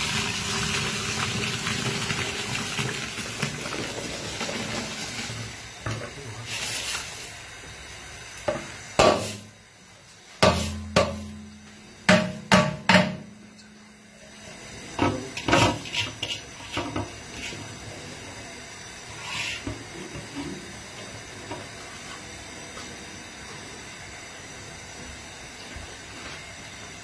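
Washed rice rushing out of a large aluminium bowl into a pot of boiling water, followed by a string of sharp metal knocks and clatters as the bowl is banged against the pot to empty it. Near the end the pot boils with a steady quiet hiss.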